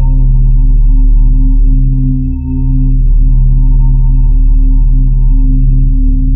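Loud, low electronic drone made of several steady tones held together, dipping briefly about two and a half seconds in.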